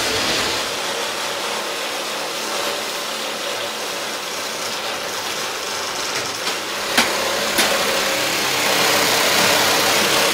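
An engine running steadily, growing a little louder near the end and cutting off abruptly, with a couple of sharp clicks partway through.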